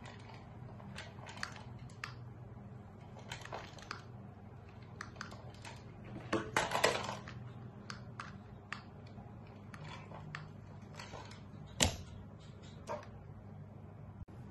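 Remote-control toy mouse running over a tiled floor: light clicks and clatters of the toy on the tiles over a steady low hum, with a louder rasping burst lasting about a second roughly halfway through and one sharp click near the end.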